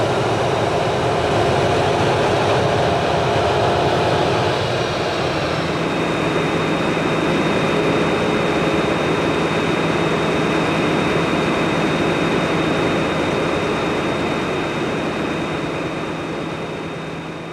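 Train running past at close range: a loud, steady rush of wheel and running noise with a steady high whine, easing off slightly near the end.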